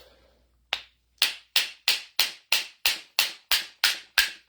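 Light, sharp hammer taps on the AGT H12R mini excavator's hydraulic pump housing, about three a second starting a little under a second in, knocking the pump's sections loose so it will come apart.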